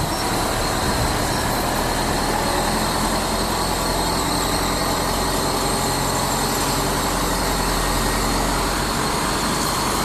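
A motor or engine running steadily at a constant speed: an unbroken mechanical drone with a low hum.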